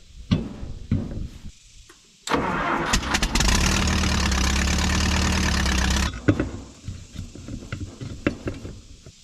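A power tool runs in one steady burst of about four seconds, starting and stopping abruptly, with a hiss and a steady low hum. Sharp metal clanks come before and after it.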